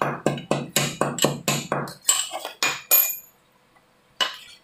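Cardamom pods being pounded with a pestle in a small steel mortar cup: quick ringing metal clinks, about four a second. They stop about three seconds in, and there is one more clink near the end.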